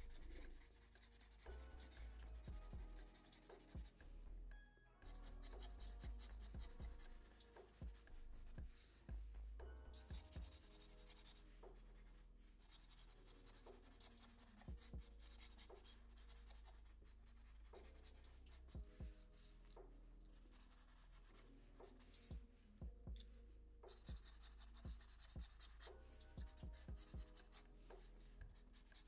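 Black marker pen scratching on paper as short fur lines are drawn, in quick runs of strokes with brief pauses between them.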